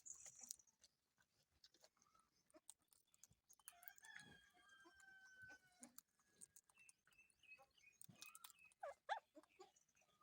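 Faint, sharp clicks of an Indian ringneck parrot eating, with a soft held whistle-like call in the middle and a few short chirps that bend up and down near the end.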